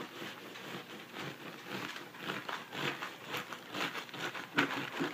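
Serrated bread knife sawing back and forth through the crust of a bread-machine loaf, in repeated short strokes, two or three a second.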